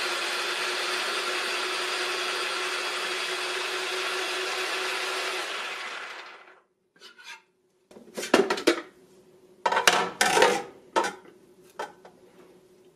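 Ninja Precision Processor's auto-spiralizer motor running steadily while a zucchini is pushed through the fettuccine blade disc, then winding down and stopping about six seconds in. From about eight seconds in, a run of plastic clunks and clatters as the spiralizer's feed chute lid is unlocked and lifted off.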